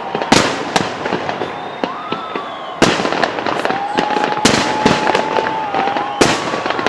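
Salute fireworks going off: irregular sharp bangs of shells bursting, several a second at times, over continuous crackling, with a thin steady whistle-like tone running through.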